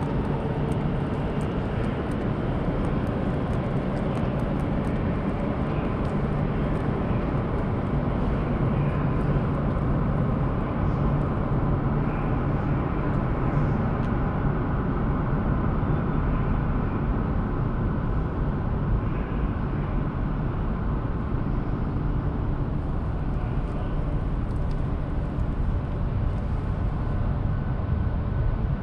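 Madrid Metro train running with a steady low rumble that holds level throughout, with faint steady tones above it.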